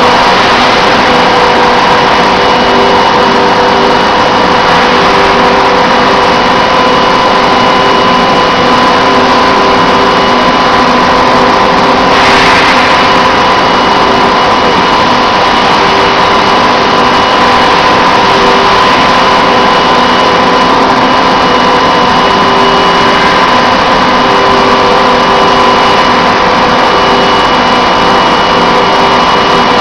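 Automated steel-bar handling machinery running: a loud, steady mechanical hum with several steady tones, one of them cutting in and out every second or two. A short hiss about twelve seconds in.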